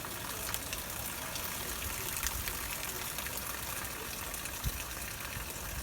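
Heavy rain pouring down steadily, with scattered drops tapping sharply and one brief low thump near the end.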